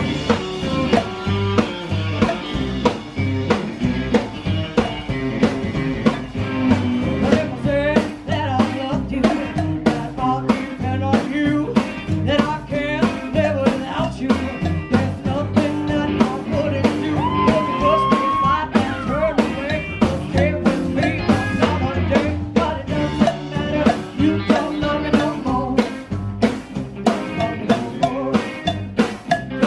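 Live rock and roll band playing a song: a woman singing over a drum kit keeping a steady beat, upright double bass and hollow-body electric guitar.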